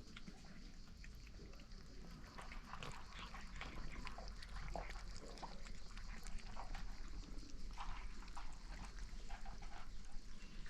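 Animals making short calls that come again and again at irregular intervals over a low steady background hum.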